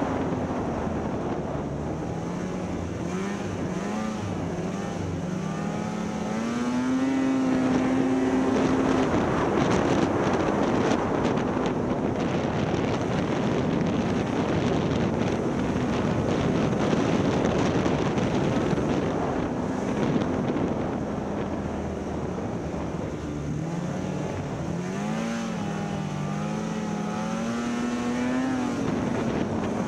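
Snowmobile engine running and revving, its pitch climbing in steps a few seconds in and again near the end, with a louder, rushing stretch through the middle.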